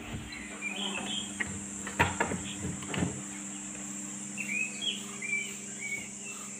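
Insects trilling steadily at a high pitch, with small birds chirping twice, briefly about a second in and again for a couple of seconds near the end. A few sharp knocks come in the first three seconds.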